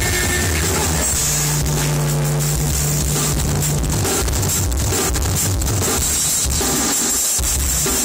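Live band playing loud, with drums and low bass notes prominent.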